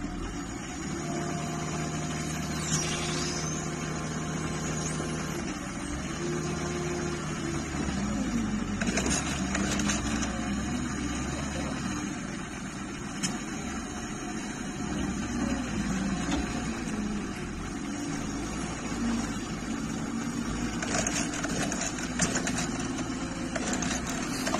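Claas Scorpion telehandler's diesel engine running steadily, its pitch shifting up and down now and then.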